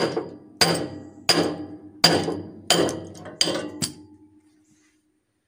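Hammer blows on the steel bearing housing of a VST Shakti 130 DI power tiller's rotary shaft, driving it off to reach the broken bearing inside. There are seven ringing metal strikes, roughly one every two-thirds of a second, with the last two close together. The ringing dies away over the following second.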